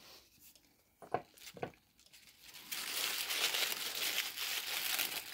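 Green tissue paper rustling and crinkling as hands dig through it. It is loudest and densest in the second half. Two brief knocks come a little after a second in.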